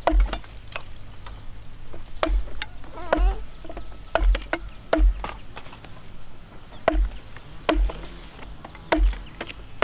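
Machete chopping cassava stems against a wooden log, with a sharp, thudding strike every second or so at an uneven pace. A faint, steady, high insect drone runs underneath.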